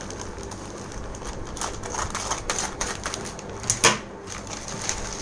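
Scissors snipping through a plastic courier mailer bag, a run of short sharp cuts mixed with the crinkle of the plastic. The loudest, sharpest snap comes about four seconds in.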